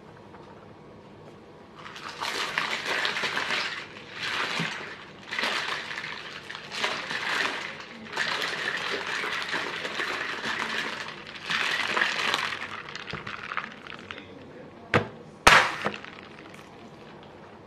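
Paper and plastic wrapping rustling and crinkling in repeated bursts as a bubble tea cup and its wide straw are unwrapped. Two sharp hits come near the end, the louder one second.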